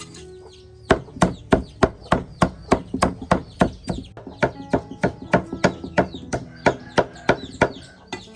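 Knife chopping on a cutting board in quick, regular strokes, about four a second, starting after a short pause about a second in.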